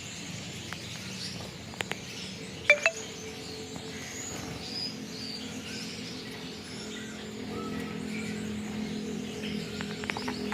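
Caged Gouldian finches chirping softly, many faint short calls scattered throughout, over a steady low hum. A couple of sharp metallic clinks sound about three seconds in.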